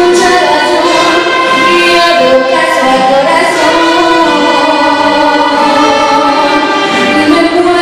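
A girl singing a song into a microphone, accompanied by a student mariachi-style ensemble of violins and guitars playing along.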